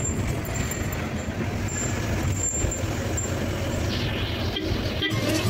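Steady engine and road noise of a moving bus, heard from inside the bus.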